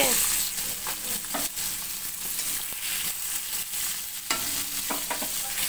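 Oil sizzling steadily as whole bata fish (a small carp) shallow-fry in an iron wok.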